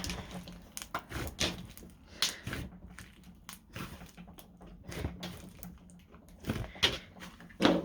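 Thick slime being squeezed and stretched by hand, making irregular sticky pops and clicks, with a louder pop near the end.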